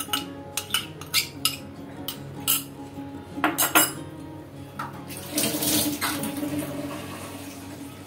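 Cup and spoon clinking against a ceramic bowl as sugar is tipped in, a quick series of sharp clinks over the first four seconds, then a softer hiss for about a second.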